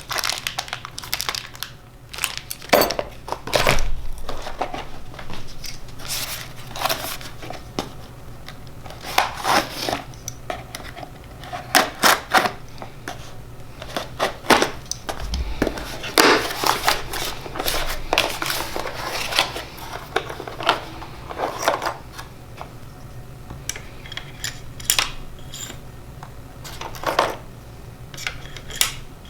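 Irregular clicks, knocks and short rustles of hard objects being handled and set down, over a low steady room hum.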